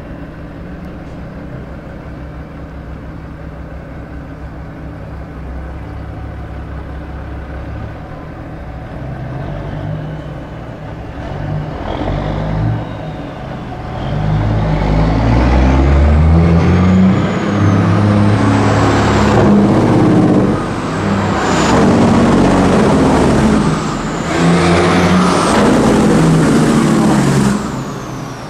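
Heavy truck engine running with a steady low rumble, then growing much louder about halfway in. It revs up and down in several swells with short dips between them, and falls back near the end.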